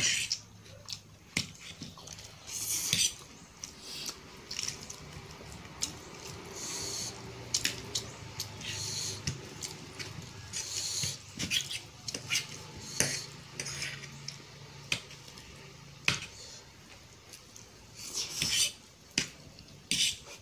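Metal fork clinking and scraping on a ceramic plate while eating instant noodles, in many sharp clicks. Between them come short slurping and chewing noises.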